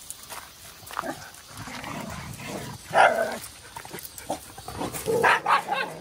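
Dogs barking: one loud bark about three seconds in, then a quick run of short barks near the end.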